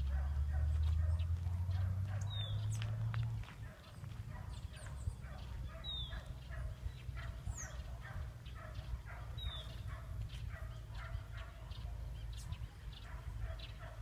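Birds calling: a short falling whistled call repeats about every three and a half seconds over a busy patter of short calls. A low rumble is loudest during the first three seconds or so.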